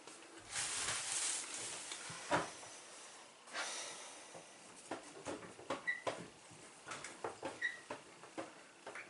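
Under-sink water shutoff valves being turned back on by hand. A short hiss comes about half a second in, then scattered light clicks and knocks of handling under the sink.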